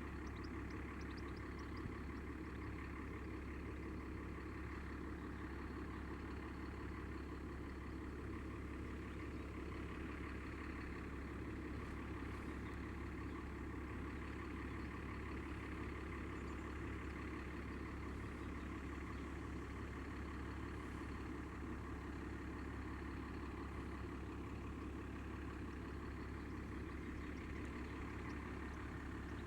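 A steady, unchanging low mechanical hum, like an engine idling, with a few faint high ticks about a second in.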